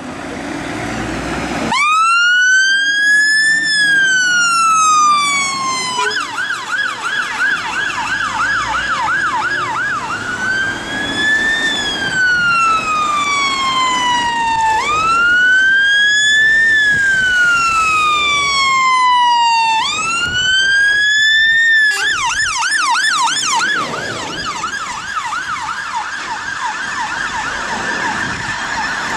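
Fire engine siren switching on about two seconds in, alternating between a slow wail that rises and falls over several seconds and a fast yelp, over the sound of the appliance and traffic.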